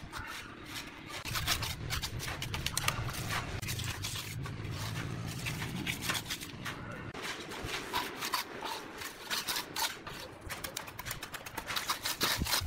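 Steel trowel scraping and tapping wet concrete as it is packed and smoothed into a steel channel mould for a balustrade top rail: irregular scrapes and clicks throughout, with a low hum for the first few seconds.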